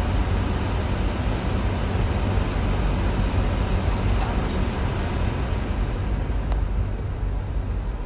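Steady road and engine noise of a moving car heard from inside the cabin: a low rumble with an even hiss over it.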